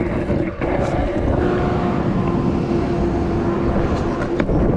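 Stunt scooter wheels rolling over wet tarmac: a steady rumbling hiss with a constant hum, and a couple of sharp clicks about four seconds in.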